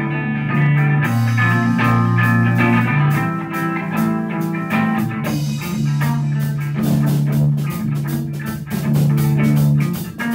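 Electric guitar and drum kit playing a rock piece together. The guitar holds long notes over the drums, and the drumming gets busier about halfway through.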